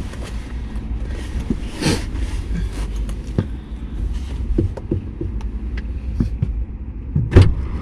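Steady low rumble inside a parked car's cabin, with scattered small clicks and knocks, and one sharp knock about seven seconds in.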